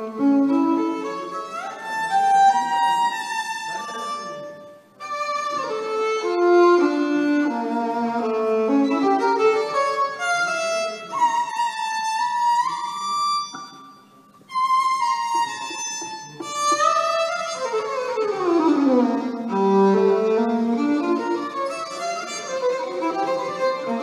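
Solo violin playing a melody of quick runs with slides between notes. It breaks off briefly about five seconds in and again around fourteen seconds, and near the end makes a long slide down to a low note.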